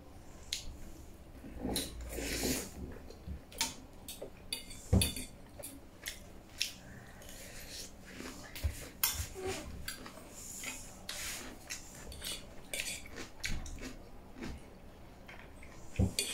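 Metal fork and spoon clinking and scraping against ceramic plates, with chewing in between the clinks.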